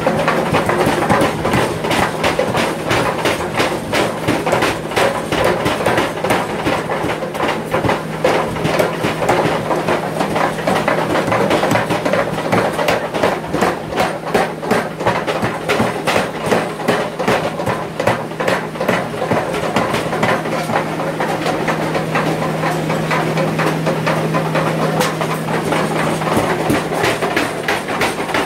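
Mechanical power hammer pounding a red-hot steel bar, a rapid, even run of metal blows over a steady hum.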